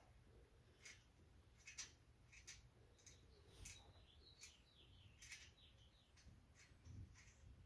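Near silence with faint scattered clicks and, about halfway through, a few faint bird chirps.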